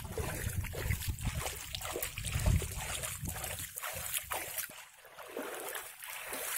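Water sloshing and splashing as someone wades through shallow floodwater. It is busiest in the first few seconds and goes quieter about five seconds in.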